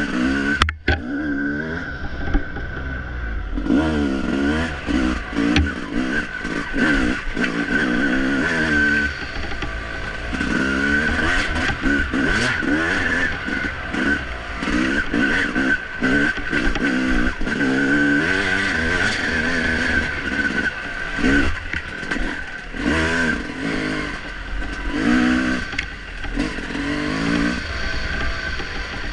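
Dirt bike engine revving up and down again and again as the throttle is opened and closed, its pitch rising and falling every second or so, with a steady high whine over it. The sound drops out for a moment just under a second in.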